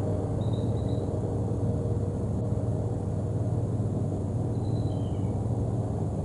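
Outdoor night ambience from a wildlife camera's microphone: a steady low rumble, with a few faint, high, falling chirps about half a second in and again around five seconds in.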